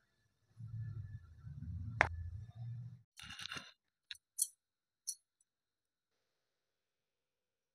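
Kinetic sand being pressed and handled around a mold, a low rustling, with one sharp click about two seconds in. A short crunchy scrape follows, then three light ticks.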